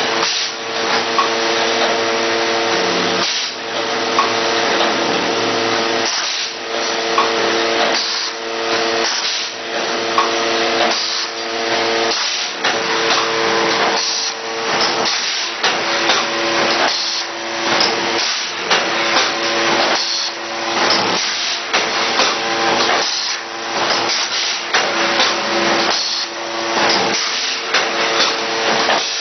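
Automatic face mask making machine running: a steady whirring noise with a low hum, pulsing in a regular rhythm roughly once a second as the machine cycles.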